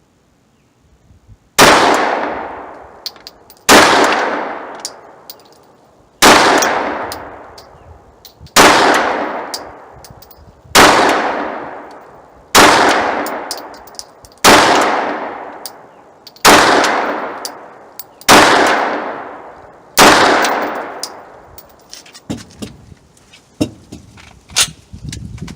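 Glock 19 9mm pistol firing ten slow, deliberate shots about two seconds apart, each sharp report trailing off in a long fading echo. A few faint clicks follow after the last shot.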